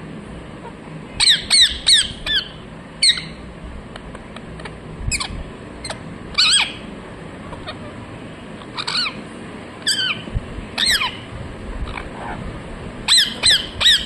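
Rose-ringed parakeet giving short, high-pitched squawks, each falling in pitch, some single and some in quick runs of three or four.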